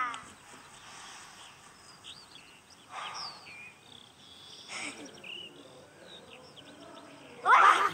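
Quiet garden ambience with small birds chirping. About seven and a half seconds in comes a loud, short, high-pitched squeal from a cartoon character, made of quickly falling glides.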